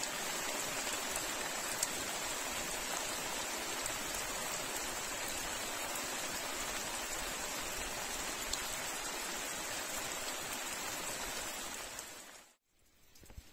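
Steady rainfall: an even hiss with a few scattered drop ticks, stopping abruptly about a second before the end.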